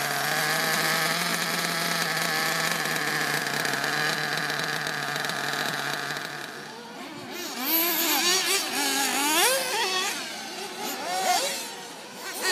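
Small two-stroke nitro glow engine of a 1/8-scale RC truggy idling steadily for about seven seconds, then cutting off. After that comes engine sound whose pitch rises and falls repeatedly, like throttle blips.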